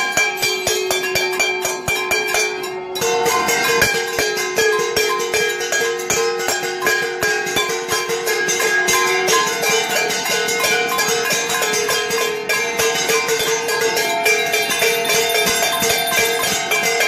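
Steel plates (thalis) and bowls beaten rapidly with spoons by many people at once, with metal bells ringing. The strikes come thick and fast over a wash of ringing tones, and a long steady tone holds through the first half.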